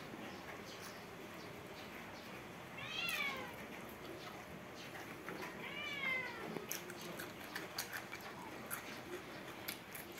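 A cat meows twice, a few seconds apart, each call rising then falling. Close eating sounds run underneath: wet chewing and lip-smacking clicks, thickest in the second half.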